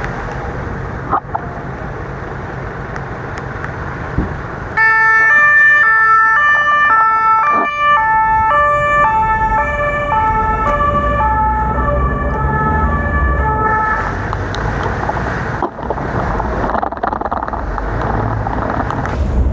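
Two-tone emergency vehicle siren alternating between a high and a low note, starting about five seconds in. Its pitch slides a little lower as it goes, and it cuts off abruptly about two-thirds of the way through. Wind and rain noise on the microphone runs underneath.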